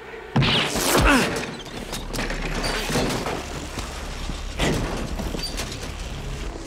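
A loud, sudden gunshot about a third of a second in, with a second heavy hit about a second in, then weaker knocks and thuds; the shot wounds a man in the rigging of a sailing boat.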